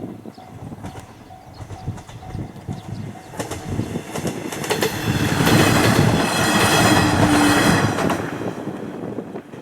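A JR Hachikō Line diesel railcar passing over a level crossing, its wheels clattering over the rail joints. It builds from about three seconds in, is loudest in the middle, and fades near the end.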